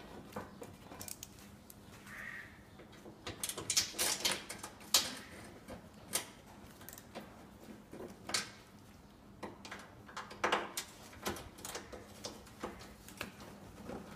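Hand tool with a Torx T25 bit undoing the screws of a car's plastic engine undertray: irregular short clicks and scrapes of the bit and screws against the plastic.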